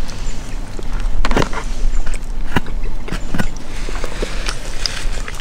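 Scattered clicks, knocks and rustles of plastic food packaging and a squeeze bottle being handled on a picnic table, over a steady low rumble.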